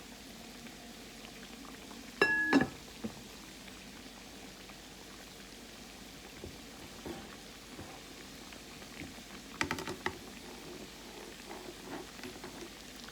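Croquettes frying in a pan of grease, a steady soft sizzle and patter. About two seconds in a brief ringing clink is the loudest sound, and a few clatters come near the ten-second mark.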